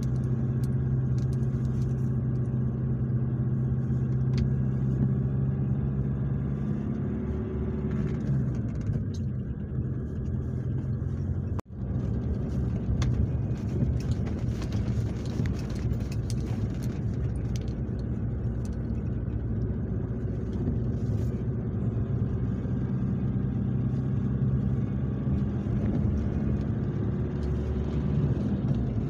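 Car engine and tyre noise heard from inside the cabin while driving: a steady engine hum over road rumble, changing pitch a couple of times as the speed changes. The sound drops out for an instant about twelve seconds in.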